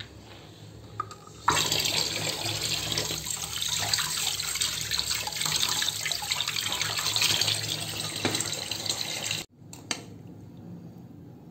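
Kitchen tap running water onto boiled elephant foot yam and potatoes in a steel strainer over a steel sink, cooling them after boiling. The water rush starts about a second and a half in and cuts off abruptly near the end.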